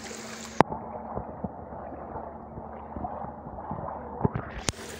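Floodwater sloshing and gurgling as someone wades through it, with a few sharp knocks about half a second in and twice near the end.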